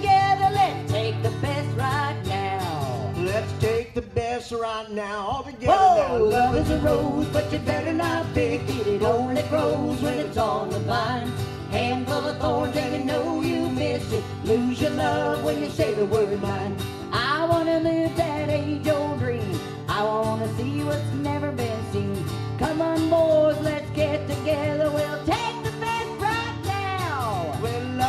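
Live country music: a strummed acoustic-electric guitar over a steady instrumental backing, with a lead melody line wavering above it and no clear sung words.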